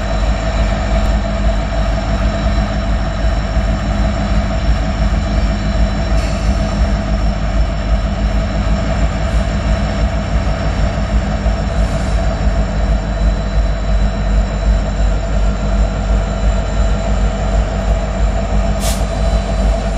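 Several diesel-electric freight locomotives hauling a long freight train, approaching with their engines running: a steady low rumble with high whining tones held throughout.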